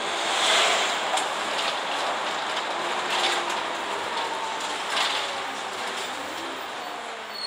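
Cabin noise inside a moving city bus: steady road and engine noise with occasional clicks and rattles from the fittings.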